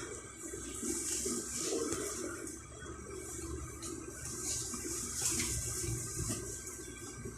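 Inside an electric commuter train car: a steady low hum and rumble with a high hiss that swells and fades several times.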